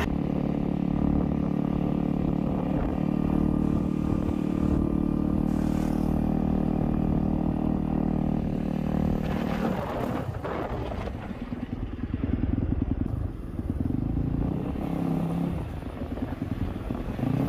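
Dirt bike engine running at a steady pitch, changing about two-thirds of the way through to a pitch that rises and falls.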